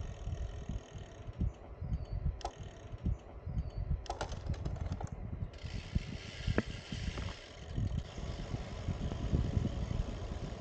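Wind buffeting the microphone of a camera on a moving road bike, with a cluster of sharp clicks about four seconds in from the bike's freewheel hub ticking while coasting. A hiss of tyre and wind noise comes in about halfway through.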